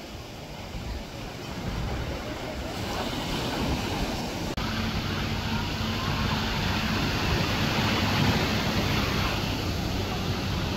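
Ocean surf washing onto a sandy beach, a steady rushing noise that jumps abruptly a little louder about four and a half seconds in.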